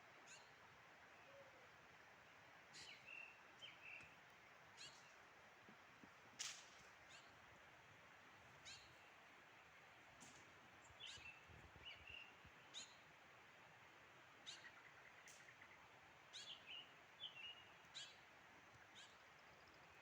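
Faint, irregular bird calls: short, sharp, high notes that drop in pitch, each often followed by a brief chirp, over a steady faint hiss.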